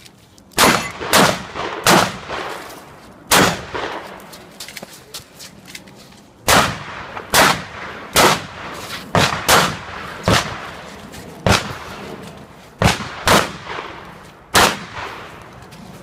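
A string of about fifteen shotgun shots fired at uneven spacing, with a pause of about three seconds after the first four, during a practical shotgun stage.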